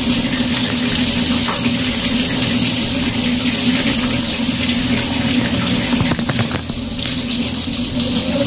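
Tap water pouring in a steady stream onto a small plastic water-wheel turbine, splashing off its spinning blades onto a wet tabletop.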